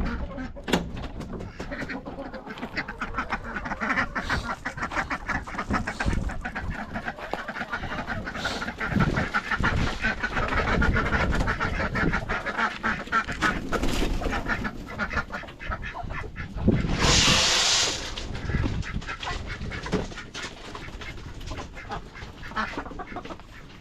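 A flock of farm poultry calling, a dense chatter of quacks and clucks. About 17 seconds in, a brief loud rush of noise.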